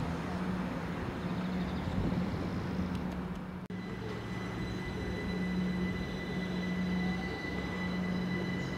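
A train at a station platform, running with a steady low hum. After a brief break about four seconds in, a steady high whine joins it.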